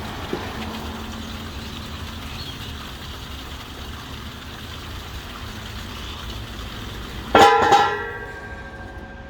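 Heavy welded steel drain grate seated into the taper of its cast drain frame: one loud metallic clang about seven seconds in, ringing on for about half a second, over steady background noise.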